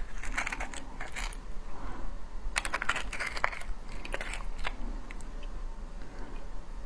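Soy-marinated crab's shell and leg pieces cracking and clicking as they are pulled apart by hand: quick runs of small clicks, in about three bunches.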